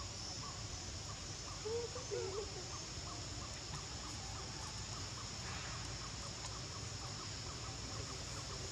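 Forest ambience: a steady high-pitched drone, with a long run of short chirps repeating a few times a second and a brief warbling call about two seconds in.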